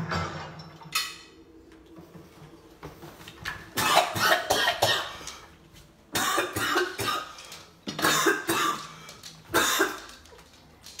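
A man coughing in repeated fits, choking on very spicy food he has just been fed.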